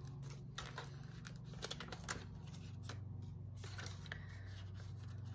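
Rustling and crinkling of Canadian polymer banknotes and the binder's envelope pages being handled by hand, with scattered small ticks. A steady low hum runs underneath.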